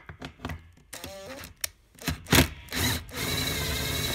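Cordless drill-driver backing a screw out of a sofa bed's metal frame: clicks and knocks as the bit is set on the screw, then, about three seconds in, the motor runs steadily with a high whine.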